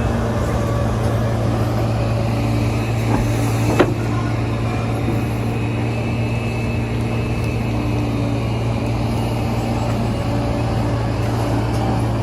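Excavator's diesel engine running steadily at a constant pitch, with a single sharp clank about four seconds in.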